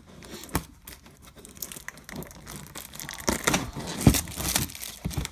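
Cardboard hobby box being opened by hand: irregular rustling, tearing and crinkling of the box flaps, seal and wrapping, busiest in the last couple of seconds.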